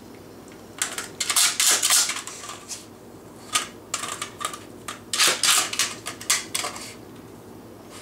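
A dog chewing and gnawing on a plastic smoke detector: its teeth and the hard casing make bursts of rapid clicking and clattering, separated by short pauses.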